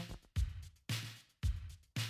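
Music with a punchy, stop-start drum and bass beat, about two hits a second, each dying away before the next.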